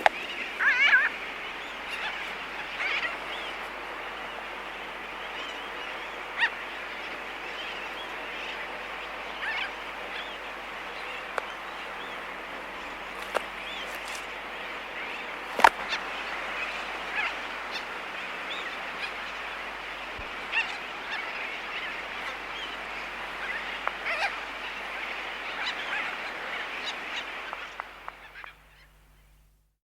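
Laysan albatross colony heard close up: scattered bill-clicks and short calls over a steady distant chorus of sooty terns, fading out near the end.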